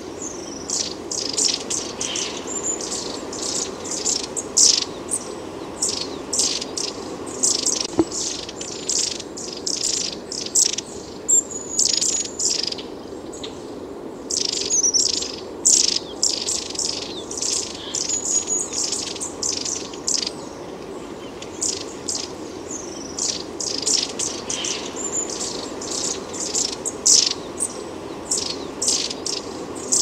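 Long-tailed tits calling: a steady stream of short, thin, high-pitched calls in quick succession, over a steady low background hiss.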